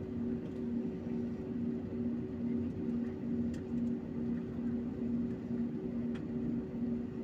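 Airliner cabin noise while taxiing: the jet engines' steady drone heard from inside, with a low hum that pulses about twice a second.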